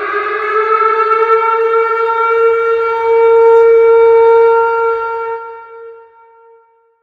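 Tornado warning siren wailing: its pitch climbs and settles into one loud, steady tone, which fades away about five to six seconds in.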